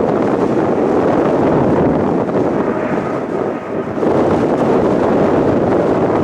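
Jet engine roar of a departing Boeing 777-300ER's two GE90-115B turbofans at takeoff power: a dense, steady roar that dips briefly a little past halfway.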